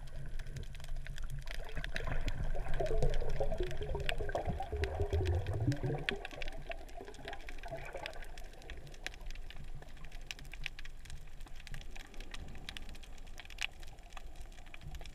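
Water sloshing and gurgling, heard from underwater, loudest between about two and six seconds in, with many sharp clicks.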